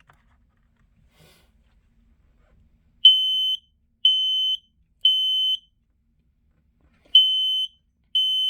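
Smoke alarm sounding on its test button: after about three seconds of quiet, three loud, high-pitched beeps about a second apart, a short pause, then the three-beep pattern starting again. This is the standard temporal-three evacuation signal of a smoke alarm.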